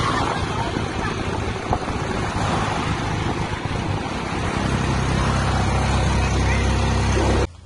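Engine of an open-sided passenger vehicle running steadily at road speed, with wind and road noise rushing over the microphone. It cuts off suddenly near the end.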